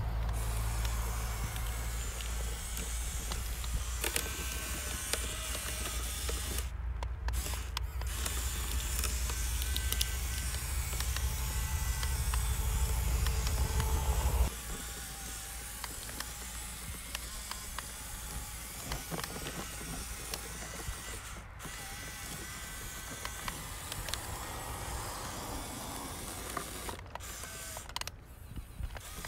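Small electric motor and gears of an RC off-road car whining as it drives through wet mud, with creaks and splashing. A heavy low rumble drops away suddenly about halfway through.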